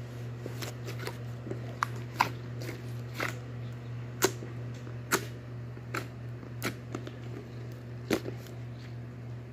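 Irregular sharp clicks and taps, some louder than others, over a steady low hum.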